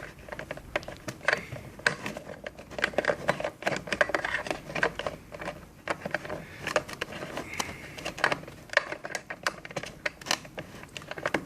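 Network cable plug being fiddled into the port at the back of a face recognition terminal: irregular small plastic clicks and rattles throughout.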